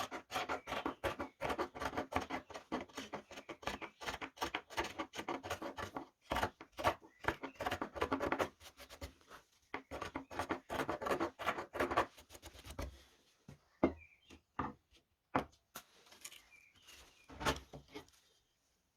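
Round carving chisels (gouges) cutting into the wood of a handmade spoon in rapid short scraping strokes, shaving after shaving. The cutting slows to a few separate strokes in the last several seconds, with faint bird chirps between them.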